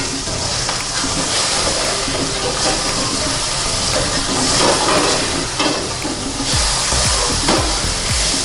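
Fish fillet pan-frying in olive oil in a skillet, giving a steady sizzle, with a spatula working in the pan.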